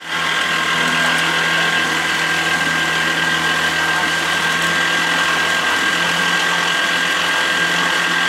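Small wooden fishing boat's engine running steadily under way: a constant drone with a high whine over it, and water and wind rushing past the hull.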